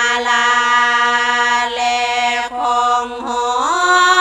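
Women's voices singing Thai Buddhist devotional chant through microphones, a slow melismatic line of long held notes with no clear words, stepping in pitch midway and gliding upward near the end.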